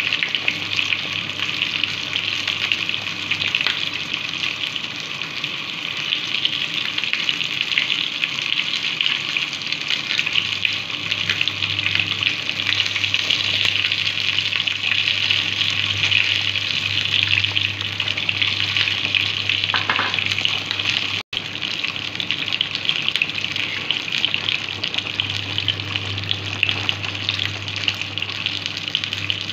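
A large pot of fish soup boiling hard, a steady seething, bubbling hiss, with a steady low hum underneath.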